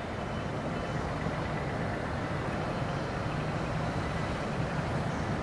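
Steady outdoor background noise: an even low rumble with a fainter hiss above it and no distinct events.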